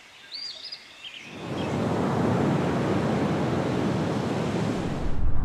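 A few bird chirps, then a loud, steady rushing noise swells in about a second in, with a deep rumble joining near the end.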